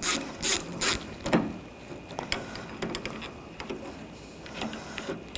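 Hand ratchet with a T30 socket loosening the exterior door handle screw: about four rasping back-strokes of the ratchet's pawl in the first second and a half, then quieter scattered clicks as the loosened screw is turned out.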